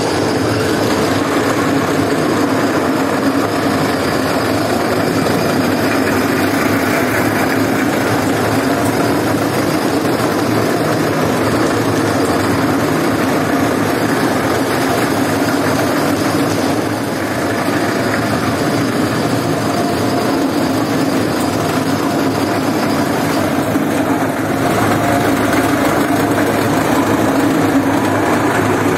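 Electric carpet-scrubbing machine running steadily as it is pushed over a soaked, soapy rug, its motor-driven brush drum scrubbing the wet pile.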